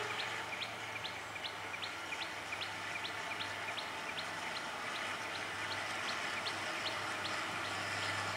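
A bird calling with a short high chirp repeated about three times a second, over the low steady hum of an approaching Class W3 diesel locomotive.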